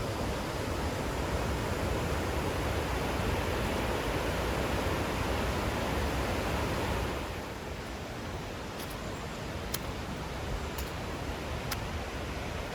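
Naena Falls, a heavy waterfall, rushing as one steady wash of falling water. About seven seconds in the sound drops a little and thins, and after that a few faint, sharp ticks come about once a second.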